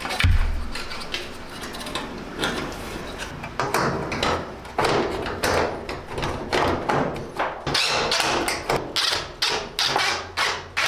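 Irregular knocks, taps and scrapes of a dryer's sheet-metal parts being handled and screwed back together, with a heavy thump just after the start.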